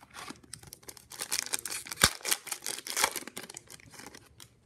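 Foil wrapper of a 2018-19 Upper Deck MVP hockey card pack being torn open and crinkled by hand: a dense crackle for about three seconds with one sharp snap near the middle, then dying away.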